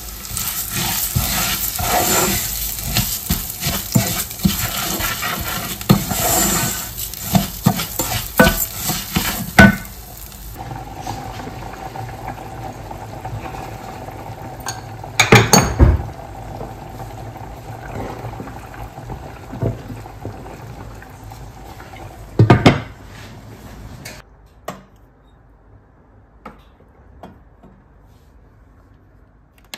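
Food sizzling in a hot pan while a utensil stirs it, clacking against the pan many times. About ten seconds in the sizzling stops, and a couple of louder clatters of pots or dishes follow over a faint steady hum.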